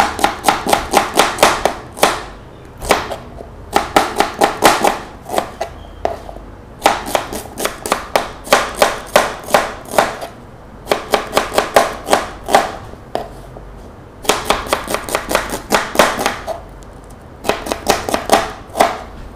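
Kitchen knife slicing an onion finely on a plastic cutting board: quick runs of knocks, about five a second, as the blade strikes the board, in bursts of one to three seconds with short pauses between.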